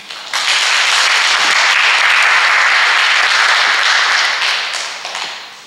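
Audience applauding. The clapping swells in just after the start, holds steady, and dies away near the end.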